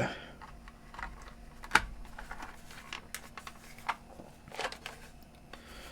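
Plastic clamshell case of a portable CD player being handled and closed back up: a few scattered light clicks and knocks, the sharpest about two seconds in.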